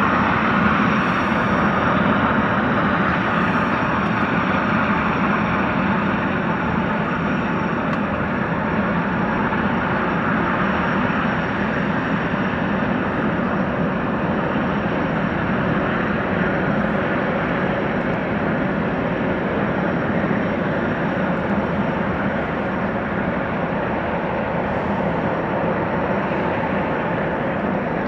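Gas-turbine jetfoil running slowly hull-borne with its foils raised: a steady rushing engine noise with a thin high whine, slowly fading as the craft moves away.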